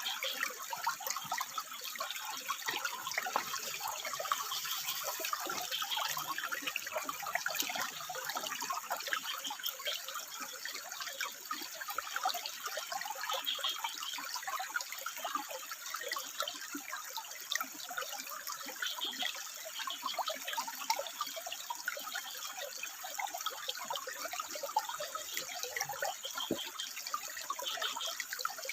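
Water trickling and burbling steadily over rocks, with a few brief frog calls now and then.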